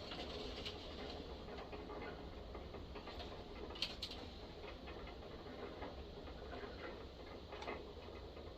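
Faint clicks and light scraping of hand tools and small metal parts being worked, as a threaded insert is turned into a chainsaw's spark plug hole, with a sharper click about four seconds in and another near the end.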